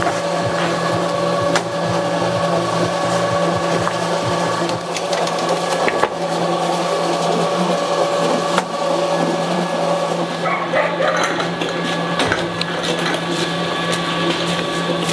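The motor of a roof-tile forming machine running with a steady hum, broken by a few sharp knocks as the mould and press are worked.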